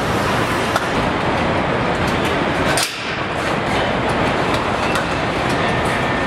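Car assembly line machinery: a steady mechanical din with scattered sharp metallic clicks and clanks, dipping briefly about three seconds in.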